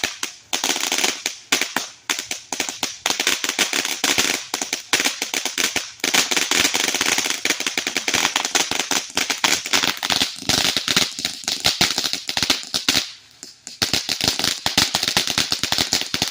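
Consumer firework going off in a long run of rapid, dense crackling pops, with a brief lull about 13 seconds in.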